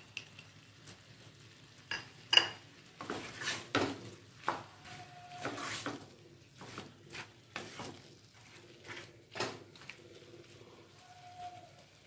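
A wooden spatula stirring and scraping chicken fry around a nonstick pan, with irregular knocks of the spatula against the pan between about two and ten seconds in. The loudest knock comes a little after two seconds.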